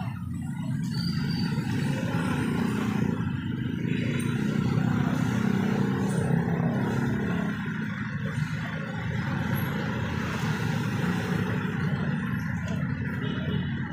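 Street traffic: motorcycle tricycles and a motorbike passing, with a jeepney going by close near the end, engines and tyres making a steady rumble that swells and fades as they pass.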